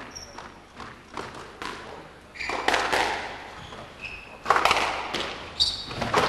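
Squash rally in an echoing hall: the ball is struck by rackets and smacks off the walls in a string of sharp thuds, louder in the second half, with a few short high squeaks of shoes on the wooden court floor.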